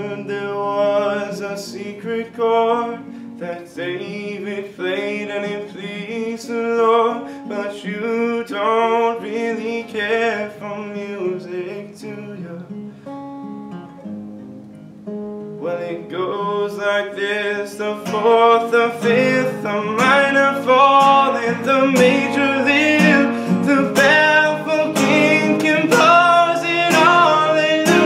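A young man singing with his own strummed acoustic guitar. The voice pauses for a few seconds around the middle, leaving the guitar alone, then comes back louder for the rest.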